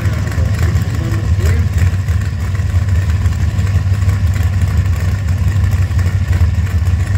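Drag cars' engines idling at the start line, a steady, loud, choppy low rumble.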